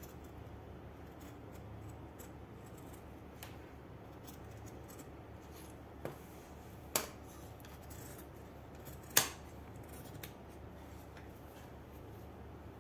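Large tailor's shears cutting cotton fabric, trimming the seam allowance of a sewn neckline: soft snipping over a low steady hum, with three sharper clicks in the second half, the loudest about nine seconds in.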